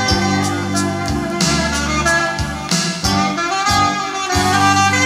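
Music playing from a vinyl LP on a Thorens TD 295 MK IV belt-drive turntable: sustained melody notes over a bass line whose notes change every second or so.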